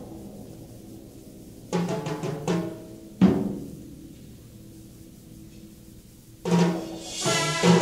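Trombone ensemble playing: quiet held chords broken by loud, sharply attacked chords about two and three seconds in, then a loud full-ensemble entrance near the end.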